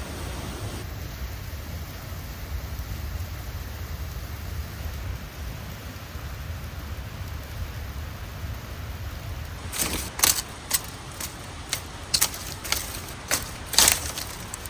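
Steady low outdoor rumble, then from about ten seconds in a quick run of about ten sharp crunching or cracking sounds over some four seconds.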